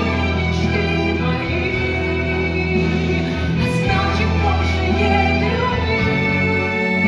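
A female musical-theatre singer sings long held notes over a steady accompaniment with sustained low notes underneath.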